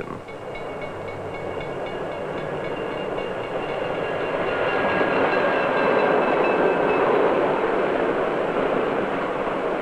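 Streamlined diesel-electric passenger train passing close by. Its running noise swells to a peak about six seconds in and then eases, with a steady high tone over it for the first seven seconds or so.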